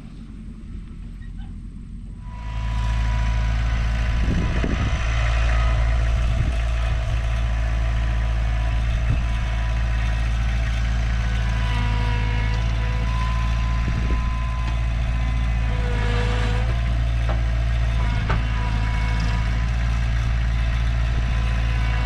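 Car running, a steady low engine and road drone that comes in suddenly about two and a half seconds in and holds steady.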